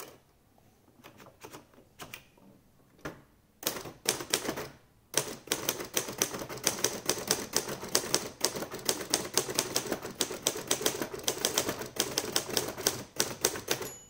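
Royal Futura 800 manual typewriter being typed on. A few faint key clicks come first, then from about four seconds in a short burst of strikes, and after a brief pause a fast, steady run of keystrokes that stops just before the end.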